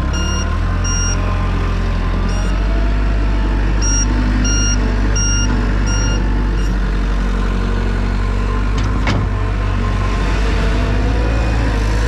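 Gehl skid steer's engine running steadily as it pushes snow, with its backup alarm beeping in short runs through the first half. There is a single sharp knock about nine seconds in.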